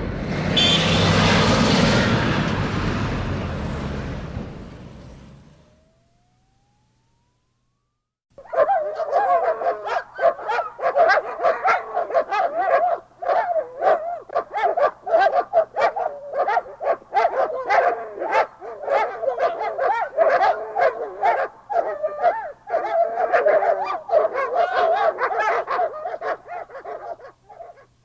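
A rushing noise fades out over the first five seconds, then after a short silence dogs bark and yip almost continuously for about twenty seconds.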